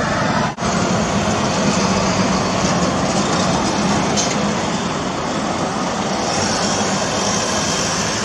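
Diesel engine of a rear-loading garbage compactor truck running steadily as the truck drives past, with a brief dropout about half a second in.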